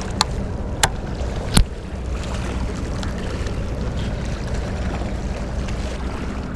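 Three sharp clicks in the first two seconds, the last and loudest about a second and a half in, over a steady low rumble of harbour and wind noise.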